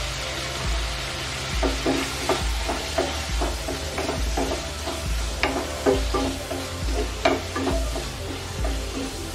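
Chicken pieces sizzling in oil in a nonstick kadai. From about a second and a half in, a spatula stirs and scrapes them against the pan in quick strokes, about two or three a second.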